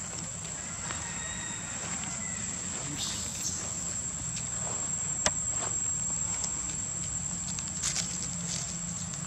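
Steady high-pitched drone of insects, with a few light clicks and rustles over it and one sharper click about five seconds in.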